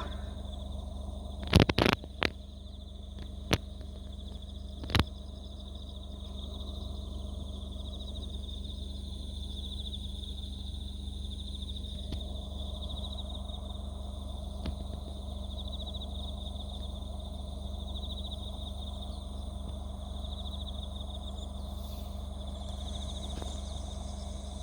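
Insects trilling steadily in the background, in a continuous high band. A few sharp knocks or clicks sound within the first five seconds and are the loudest sounds.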